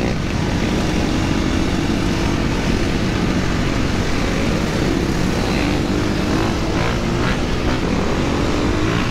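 A pack of dirt bikes and ATVs riding together, their engines running loud and steady with revs rising and falling, and one engine note climbing near the end.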